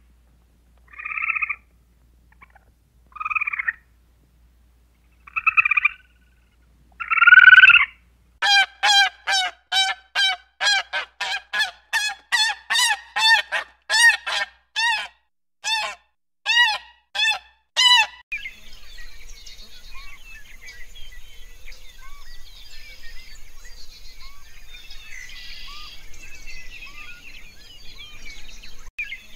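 An animal's repeated loud calls: four single calls a couple of seconds apart, then a quick run of about twenty at roughly two a second that stops suddenly a little past halfway. After that, a busier background of many small chirps over a steady high whine.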